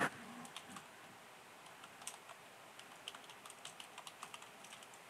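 Faint typing on a computer keyboard: a run of irregular key clicks as a short sentence is typed.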